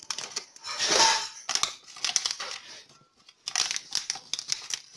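Pringles can being opened: the plastic lid pulled off and the foil seal torn and peeled away, crinkling and crackling in uneven bursts. The loudest rustle comes about a second in, and a run of crinkles comes near the end.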